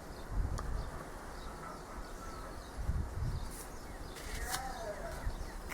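Quiet background ambience with faint scattered clicks and a soft thump, with a faint bird call falling in pitch a little before the end.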